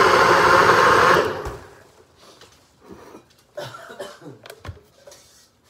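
Countertop blender whirring through hot bone broth and coconut oil, then switched off about a second in and spinning down. A few faint knocks and clatter follow.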